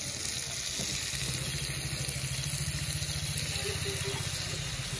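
Tiger prawns frying in hot oil, a steady, unbroken sizzle, over a steady low hum.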